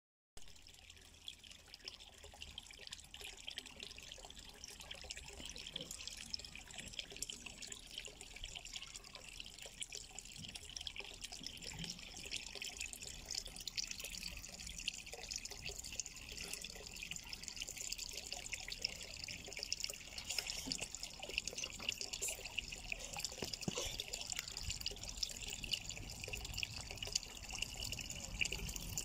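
Water trickling and splashing in a garden pond: a steady patter of fine drips that grows gradually louder.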